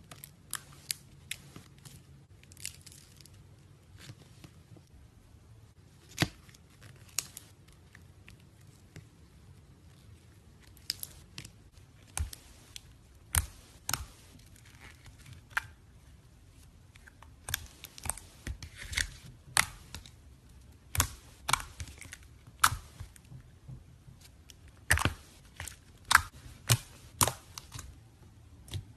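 Slime being handled, making irregular sharp crackles and clicks, sparse at first and coming more often in the second half.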